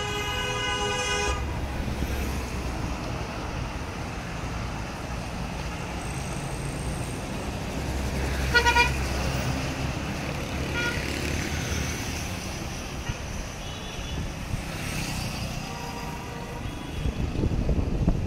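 Street traffic: engines running and vehicles passing close, a minibus among them, with car horns tooting: one longer honk at the start, a short blast about 9 seconds in, and more toots later.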